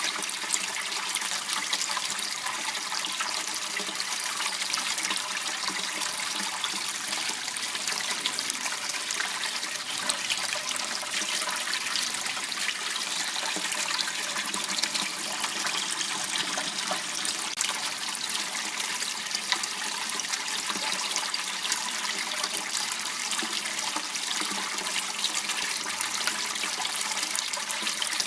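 Water running and trickling steadily in a small waterway, a constant rushing hiss without a break.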